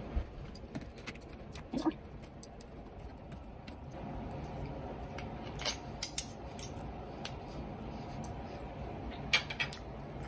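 Metal knife and fork cutting into a lobster tail: scattered light clicks and scrapes of the cutlery against the shell and plate. There are a few sharper clicks about six seconds in and again near the end, over a low steady room hum.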